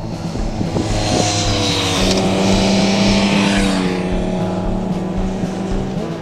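A road vehicle driving past. Its engine note falls slightly in pitch as it goes by, and tyre and wind noise is strongest about one to four seconds in.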